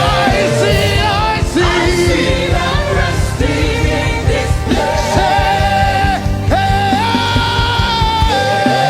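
Live gospel worship music: a voice holding long, wavering notes without clear words over a band with a steady low bass.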